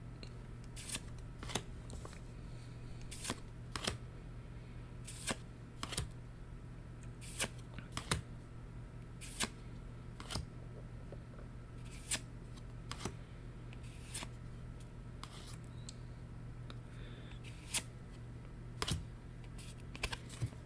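Weiss Schwarz trading cards handled and flipped through one at a time out of booster packs: irregular sharp little card clicks and snaps, about one every half second to a second, over a faint steady low hum.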